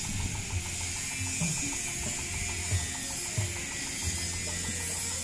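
A small engine idling steadily, with an even mechanical ticking, about six ticks a second, over a low hum.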